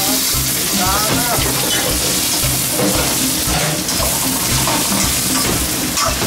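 Food sizzling and frying in a hot pan as it is stirred, a steady hiss of frying oil.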